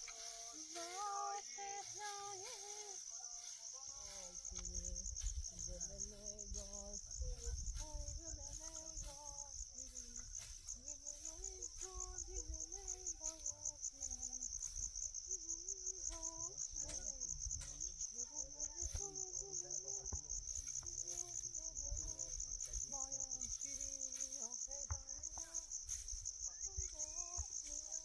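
Crickets chirping in a steady, rapid, unbroken pulse, with a faint low voice-like sound wandering beneath it.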